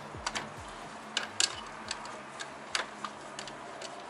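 Irregular sharp clicks and taps, about a dozen, of a hand tool and plastic parts being worked on an ATV's body.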